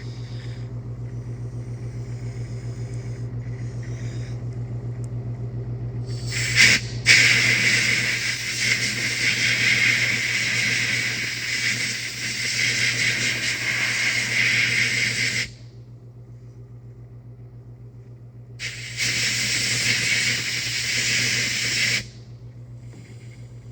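Two long bursts of compressed-air hissing, the first about nine seconds and the second about three, over a steady pulsing motor hum that runs throughout.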